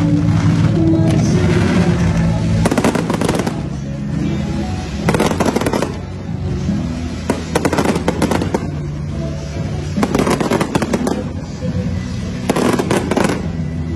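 Fireworks crackling in five rapid volleys a couple of seconds apart, over music with steady sustained notes.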